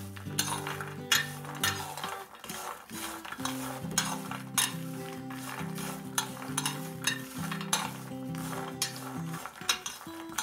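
Raw peanuts rattling and clicking against a glass baking dish as a hand stirs them, over soft background music.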